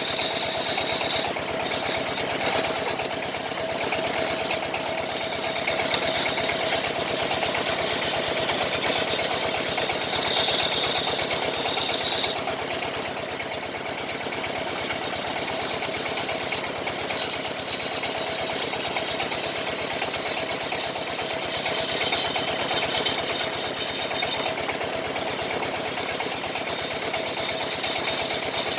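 A machine runs steadily with a very fast, even rattling chatter, typical of a wood lathe turning a wooden kendang drum body while a chisel cuts into it.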